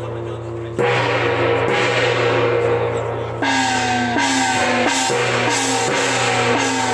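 Temple procession gong-and-drum band playing: cymbals clash continuously while gongs are struck again and again, each ringing tone dropping in pitch after the hit. The strikes come faster, about twice a second, from around the middle on.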